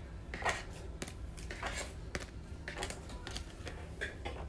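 Trading cards being gathered and handled on a table: a few irregular light clicks, taps and rustles.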